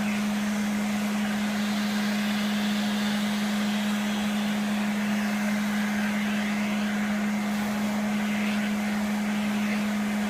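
Vacuum cleaner motor running steadily, a constant low hum with airy rushing noise above it.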